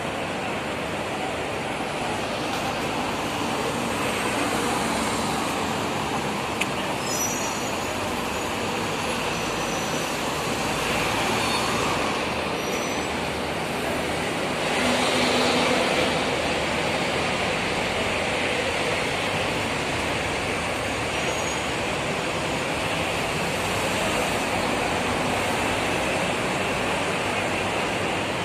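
Steady road traffic noise from city streets, with a louder swell about halfway through.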